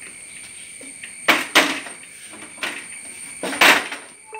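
The two steel shutter leaves of a steel door-cum-window frame swung shut together: a few sharp metal clanks, the loudest about one and a half and three and a half seconds in.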